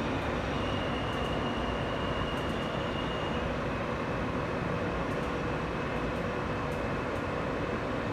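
R160B subway car running at speed through a tunnel, heard from inside the car: a steady rumble of wheels on rail with faint thin tones over it.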